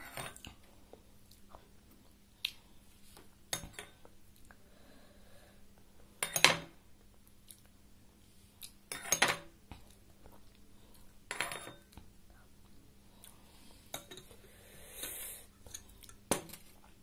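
Steel spoon clinking and scraping against a glass soup bowl while soup is eaten, a series of sharp clinks a few seconds apart, the loudest about six seconds in, with quiet chewing between.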